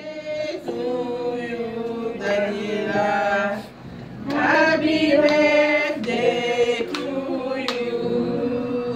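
A small group of people singing a birthday song together, with a few hand claps near the end.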